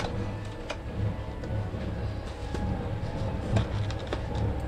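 Faint background music over a low rumble, with a few light clicks and handling noises from a cardboard chocolate gift box.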